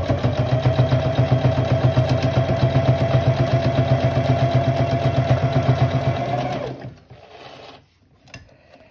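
Electric sewing machine running at a steady speed, stitching cloth: a constant motor whine with rapid, even needle strokes. It stops about seven seconds in, leaving a few faint handling sounds.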